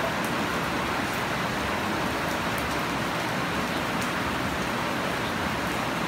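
Heavy rain falling steadily on leafy plants and bare soil: a dense, even hiss with scattered sharper drop ticks.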